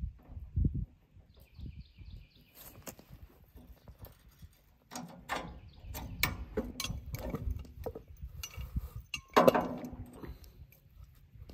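Clinks and knocks of a sawmill trailer's steel support jack being handled and set down on a wooden block, with a louder scraping clatter about nine seconds in.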